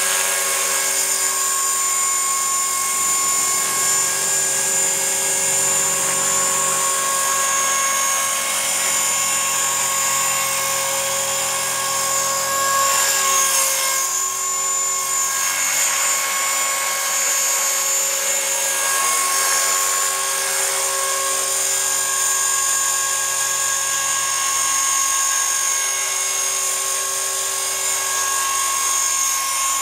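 Electric EXI 450 SE RC helicopter (a T-Rex 450 clone) in flight: a steady high-pitched whine from its brushless motor and gears over the rotor noise. The pitch wavers briefly about halfway through as it manoeuvres.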